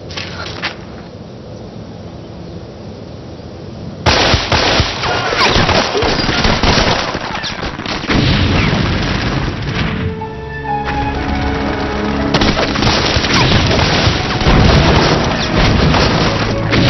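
Battle sound effects mixed with music: gunfire and explosions break in suddenly about four seconds in and carry on densely. Around ten seconds there is a short lull where held music tones come through.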